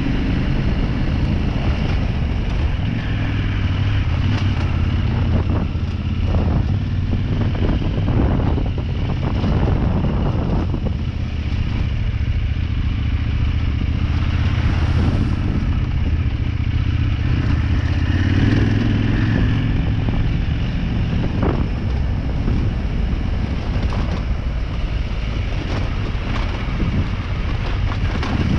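Motorcycle engine running steadily in second gear at trail speed on a rough dirt track. A cluster of clattering knocks from bumps comes between about six and eleven seconds in.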